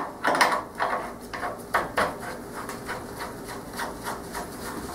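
Angle grinder being handled as its grinding wheel is changed by hand: a run of sharp clicks and knocks of metal parts over the first two seconds, then softer rubbing and handling.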